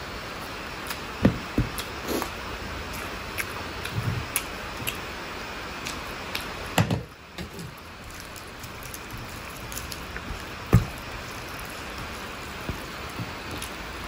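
Close-miked eating of mutton curry with rice: scattered mouth clicks and chewing sounds, with a few louder thumps, over a steady hiss.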